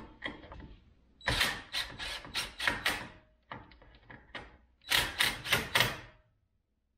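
Cordless impact driver hammering bolts in with short trigger bursts: a run of about six rapid stabs between one and three seconds in, lighter ticking, then another run of four or five near the end. The bolts are run down only to the threads, to be finished by hand.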